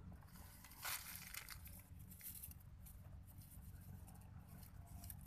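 Faint rustling and crackling over a low rumble, with one short, louder rustle about a second in.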